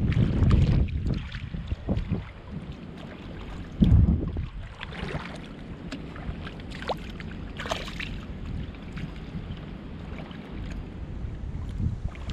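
Shallow water sloshing and splashing as a person wades and digs by hand in mud, with small scattered splashes and clicks. Wind gusts on the microphone rumble heavily in the first second and again about four seconds in.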